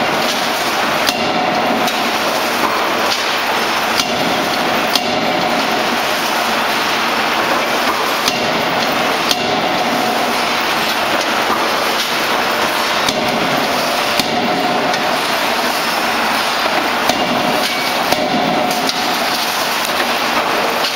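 Hydraulic CNC die-forging hammer (16 kJ) striking hot steel in closed dies to forge pliers, a string of sharp blows roughly a second apart over steady, loud shop-machinery noise.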